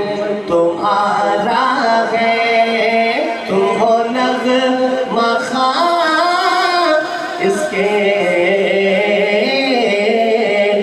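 A man singing an Urdu national song (mili naghma) into a microphone, in long held notes that waver and bend in pitch.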